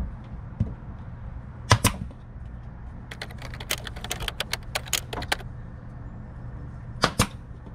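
Pneumatic nail gun firing sharp shots, driving nails through carpet into the wooden slide guide under an RV slide-out: two shots about two seconds in, a rapid run of about a dozen from about three to five seconds in, and two more near the end.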